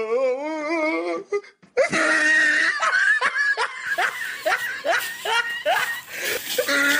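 Laughter, a run of repeated ha-ha pulses about three a second. It follows a short wavering pitched sound lasting about a second at the start.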